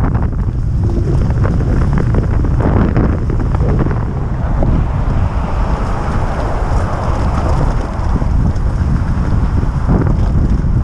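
Heavy wind buffeting on the microphone of a moving electric moped, with tyre noise and scattered knocks from riding over a rough mud-and-gravel track.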